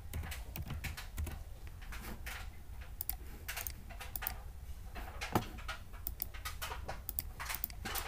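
Typing on a computer keyboard and clicking a mouse: a run of irregular short clicks over a low steady hum.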